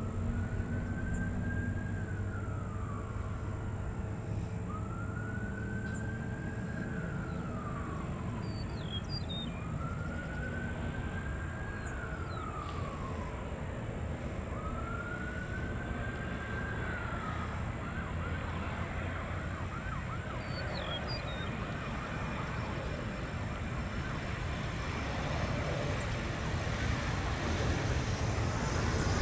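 An emergency vehicle siren wailing in four slow rising-and-falling cycles, then switching to a fast yelp for a few seconds, over a steady low rumble. Near the end an approaching aircraft's noise starts to rise.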